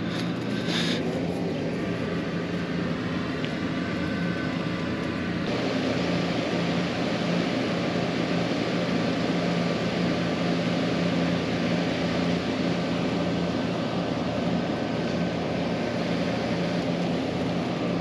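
Steady mechanical drone of an engine or large motor running, with a few held low tones under a hiss that gets louder about five and a half seconds in.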